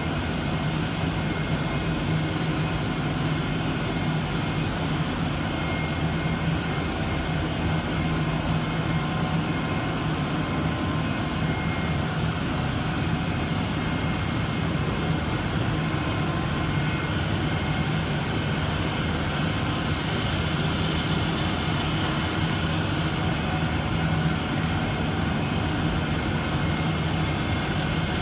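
Four-colour paper printing machine running steadily, a constant mechanical whir with a steady low hum as the paper web feeds over its rollers.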